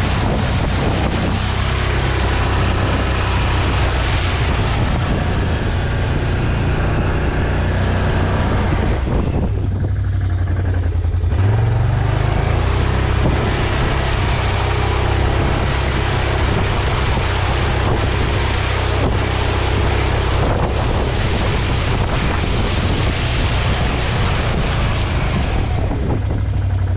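ATV engine running steadily as it is ridden, with heavy wind noise on the microphone. About midway the engine note rises briefly.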